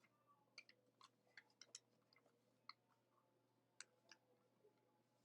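Faint crinkles and clicks of a sheet of paper being folded in half and creased, a dozen or so irregular small ticks over near silence.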